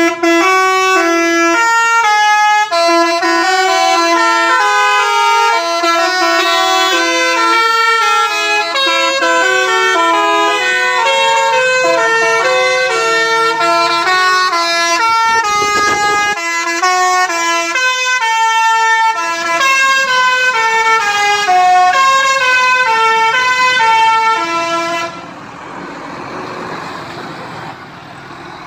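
Musical multi-tone bus horns of the Indonesian telolet kind, loudly playing a quick tune note after note, with a brief burst of noise about halfway through. About three seconds before the end the horns stop, leaving a quieter steady noise.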